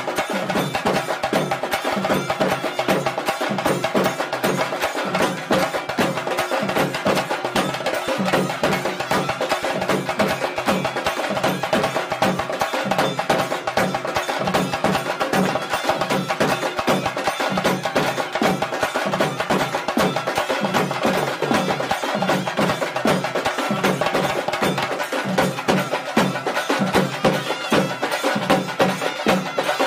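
South Indian temple-festival percussion (melam) playing rapid, unbroken drumming, with steady held tones running underneath.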